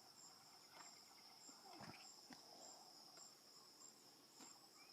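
Near silence with faint insects: a steady high drone and short high chirps about twice a second.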